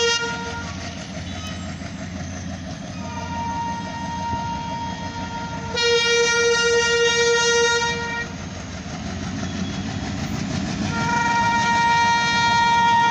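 Locomotive horn sounding long blasts: one ending just as the sound begins, a long blast of about five seconds through the middle, and another starting near the end. Under the horn, the low rumble of the approaching train grows louder.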